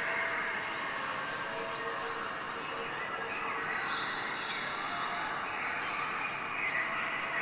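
Steady outdoor ambience with faint bird calls.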